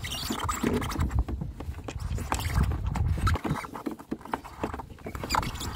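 Handling noise from a thick rubber-jacketed cable being coiled and pulled through the hands: rustling, scuffing and light clicks as it slides and knocks against the roof. A low rumble runs until about three seconds in.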